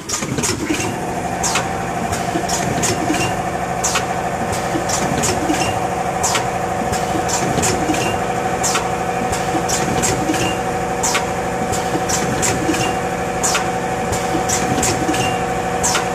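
Packing machine running steadily, with a constant whine that settles in about a second in and a string of sharp mechanical clicks, two or three a second.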